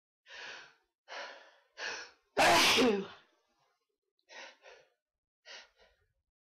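A person sneezing: three short breaths build up, then one loud sneeze about two and a half seconds in, followed by two pairs of short breaths.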